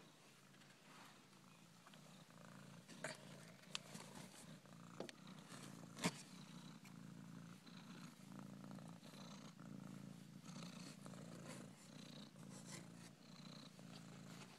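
Mother cat purring steadily, faint, with a few sharp clicks between about three and six seconds in.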